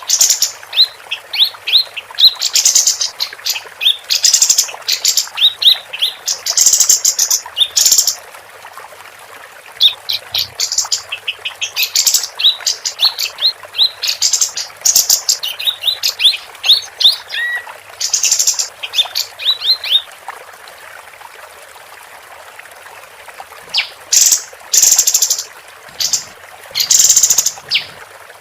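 A female kapas tembak songbird singing loud, rapid bursts of sharp high chirps and trills, with a few seconds' pause late on before the chattering resumes.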